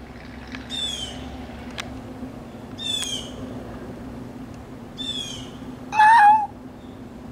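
A bird gives three short, high calls, each sweeping downward, about two seconds apart; then a cat meows once, the loudest sound, about six seconds in.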